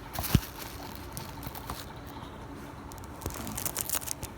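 Plastic shrink wrap on a DVD box set crinkling and crackling as fingers pick at it, with a soft knock about a third of a second in and denser crinkling near the end.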